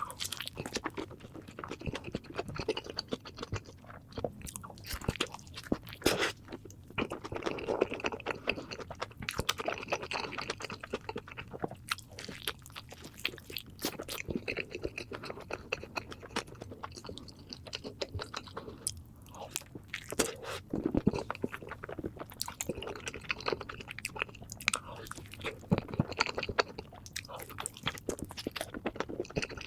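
Close-miked eating: a person biting into and chewing food, with many irregular crunches and clicks.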